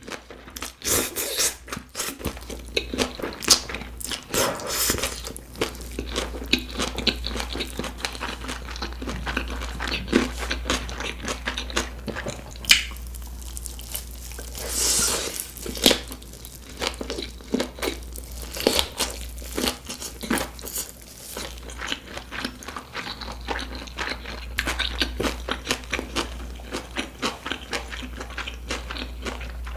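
Close-miked chewing and biting of sausage gimbap, a seaweed-wrapped rice roll with a whole sausage inside: a steady run of wet mouth clicks and soft crunches, with a brief louder rustle about halfway through.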